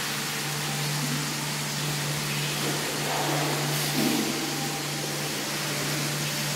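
Water poured from a metal hammam bowl splashing over a person's body, against a steady rushing hiss and a low steady hum.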